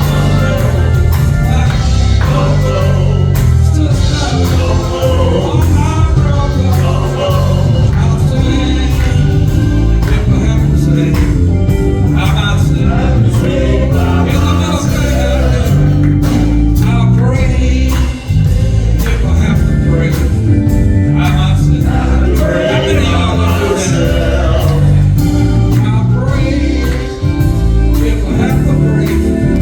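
Live gospel music: singing over a band with heavy bass and drums, loud and continuous.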